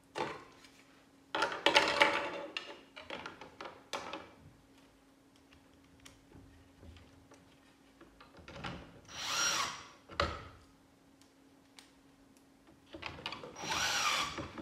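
Cordless drill-driver driving screws into a 3D-printed plastic part: two short runs of about a second each, about nine seconds in and near the end, the motor's pitch rising and falling each time. Before them, a few seconds of knocks and clatter as the plastic parts are handled.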